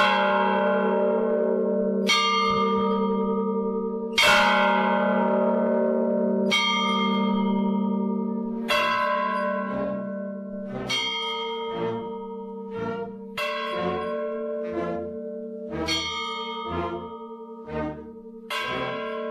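A deep bell tolling, each stroke ringing on as it dies away. The strokes come about every two seconds at first, then about once a second from about halfway.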